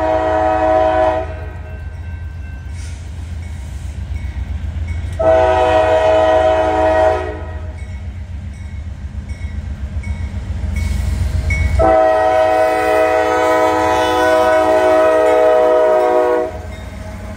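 Freight locomotive's multi-note air horn sounding for a grade crossing as the train approaches: a blast ending just after the start, a second about five seconds in, and a long final blast from about twelve to sixteen seconds. A low rumble runs underneath until the last blast.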